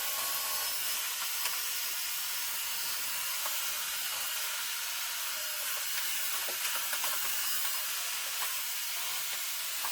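Two iRobot Roomba robot vacuums running together, a steady, even hiss of their suction motors and brushes, with a few faint ticks.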